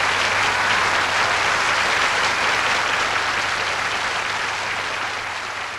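Studio audience applauding at the end of a song, the applause slowly dying away.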